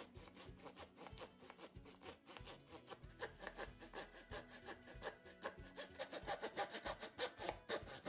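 Hand saw cutting through a hickory board in quick back-and-forth strokes, about four a second, growing louder over the last few seconds.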